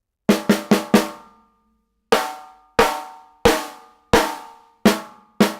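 Snare drum tuned tight and struck: four quick strokes, then single strokes about every 0.7 s. Each stroke rings out with a clear pitch, the resonance that decoupling the lug screws from the shell is meant to bring out.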